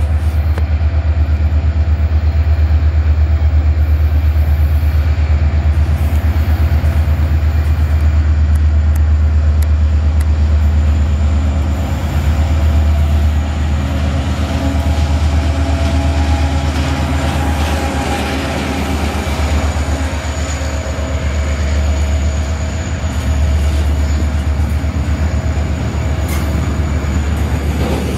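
Freight train passing close by: a diesel locomotive's engine rumbling as it comes up, then tarpaulin-covered freight wagons rolling past on the rails with a steady low rumble and rail noise.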